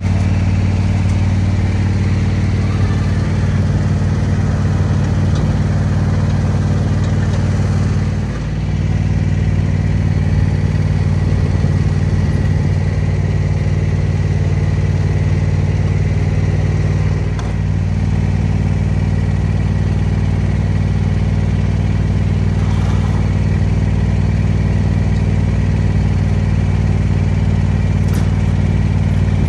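Small engine running steadily at one constant speed, with two brief dips in loudness about 8 and 17 seconds in.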